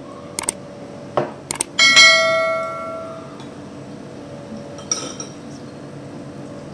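Tableware clinking on a table: a few light knocks, then about two seconds in one piece is struck and rings with a clear tone that fades over about a second and a half. One more faint clink comes near the end.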